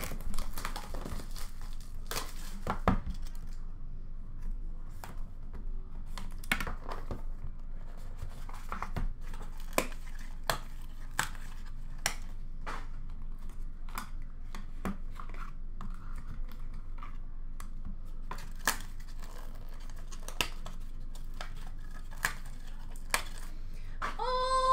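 Hockey card box being opened and handled: packaging tearing and crinkling, with irregular sharp clicks and taps as cards in hard plastic holders are moved about.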